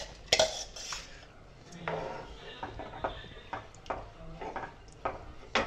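Spoon clinking and knocking against a cooking pot in a quick irregular series while rice is stirred in hot water.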